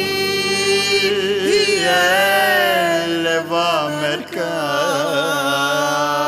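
A man and a woman singing a Ladino song in duet with ensemble accompaniment. They hold two long notes with vibrato, with a brief break in the line about three and a half seconds in.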